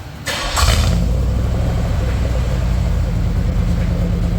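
Cadillac engine started with a brief burst as it cranks and catches about half a second in, then running steadily with a deep rumble. This is its first start on fresh oil after an oil change.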